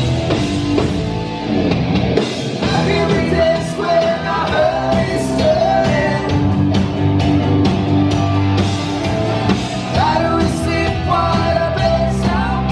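Rock cover band playing live: a singer over electric guitar, bass guitar and drums.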